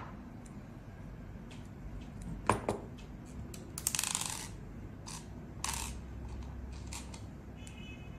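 Light clicks and taps of small metal parts and tools being handled on a work surface, with a short scraping rustle about four seconds in.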